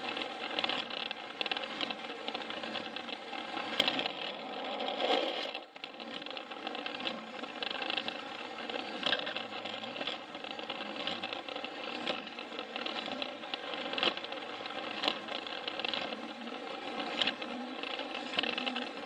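Battery-powered Plarail toy train running on plastic track: its small electric motor and gearbox whir steadily while the wheels click over the rail joints. The sound dips briefly about six seconds in.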